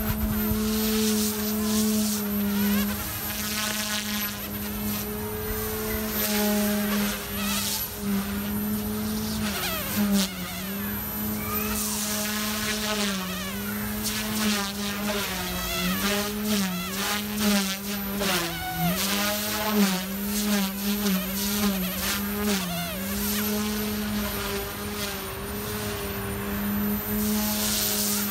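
OMPHOBBY M2 electric RC helicopter in flight, its rotors and motor giving a steady buzzing whine. Through the middle of the stretch the pitch dips and wobbles again and again as the load on the rotor changes during manoeuvres. A few swells of rushing noise come and go over the top.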